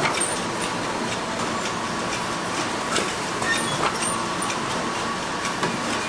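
Ice cream bar production line running: steady machinery noise with a faint whine, broken by irregular metallic clicks and clatter from the conveyor carriers and moulds.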